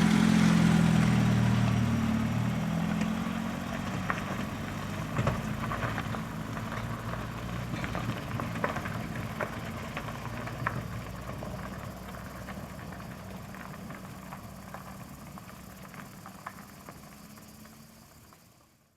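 A car engine running as the car pulls away, loudest at first and fading steadily as it drives off into the distance, with scattered light clicks and crunches along the way.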